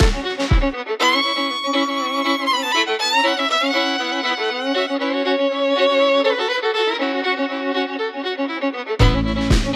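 Instrumental background music. The low beat and bass drop out about a second in, leaving the melody and chords, and come back near the end.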